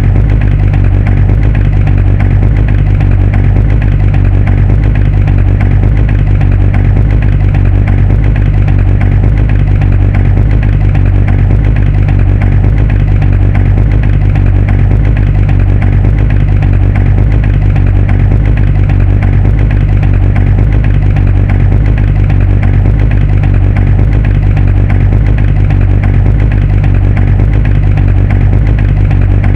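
Muscle car engine idling steadily with a loud, deep, even rumble that does not change in speed.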